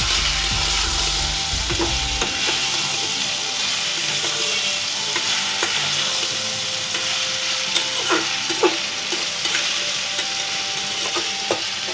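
Chopped okra frying in oil with onion in a karahi, sizzling steadily while a metal spatula stirs it, with a few sharp scrapes and knocks of the spatula against the pan.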